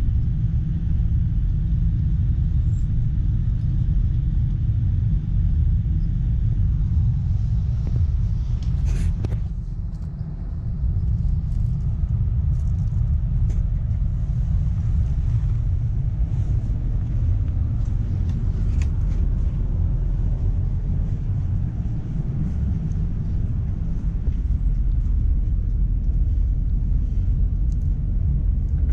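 Steady low rumble inside the passenger car of an ES2G Lastochka electric multiple unit running on the rails, with a few sharp clicks and knocks about a third of the way in.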